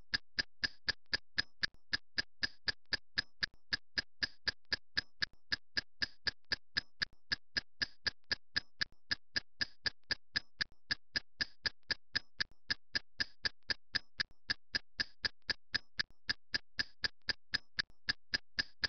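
Clock-style ticking sound effect for a countdown timer: short, even ticks, roughly four to five a second, at a steady level throughout.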